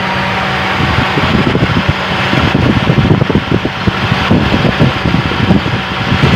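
Carbureted Mitsubishi 4G15 engine idling with the air conditioning on, its electric cooling fan running. The fan noise turns louder and gustier about a second in.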